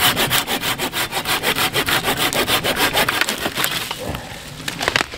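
Hand saw cutting through a branch of a fallen tree in quick, even strokes that tail off about four seconds in.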